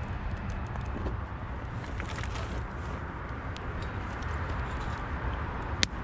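Wood campfire burning in a metal fire bowl, crackling with scattered small pops over a steady low rumble, and one sharp loud pop near the end.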